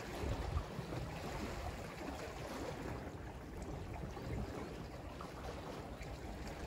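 Sea waves washing along the shore, with wind buffeting the microphone.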